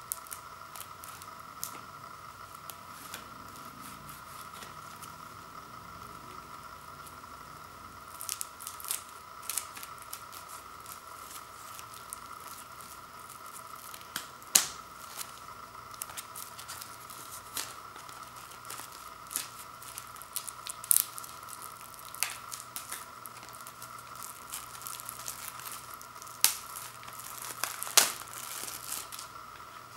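Cellophane shrink wrap being slit and torn off a CD digipak: plastic crinkling and tearing with scattered sharp snaps, busiest and loudest near the end as the wrap comes away.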